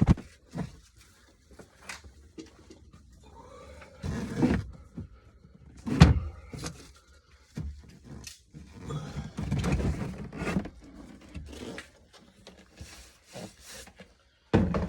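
Irregular knocks and thumps with some scraping, a dozen or so at uneven spacing, the loudest about six seconds in and a busier cluster around ten seconds.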